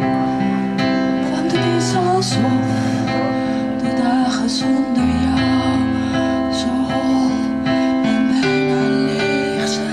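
A woman singing into a microphone over instrumental accompaniment, holding long notes.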